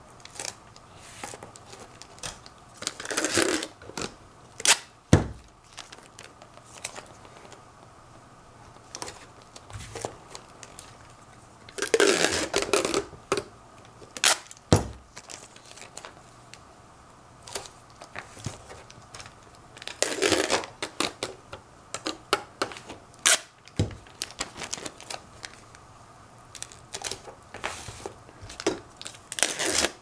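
Clear plastic packing tape being pressed and smoothed by hand onto a painted cardboard box: crinkling, rustling handling in bursts every several seconds, with a few sharp knocks on the box.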